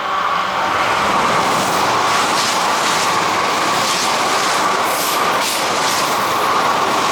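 Kintetsu electric train running through the station without stopping: a loud, steady rush of wheels on rails with some clickety-clack and brief high crackles along the way.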